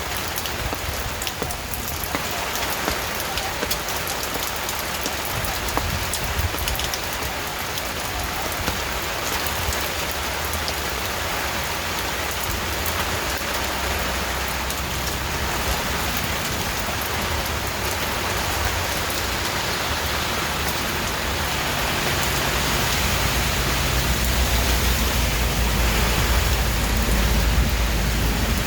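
Steady rain falling on a surface, an even hiss with scattered drop ticks. A low rumble swells over the last several seconds.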